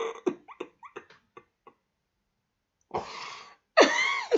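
A man laughing hard without words: short breathy pulses at first, then a cough-like burst about three seconds in and a louder wheezing laugh near the end whose pitch falls.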